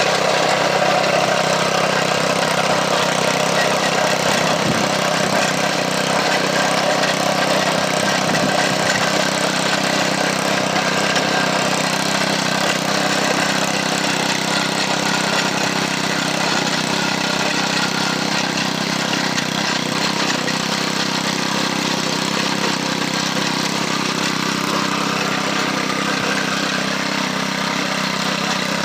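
Garden tiller's small carbureted gasoline engine running steadily while tilling the garden soil.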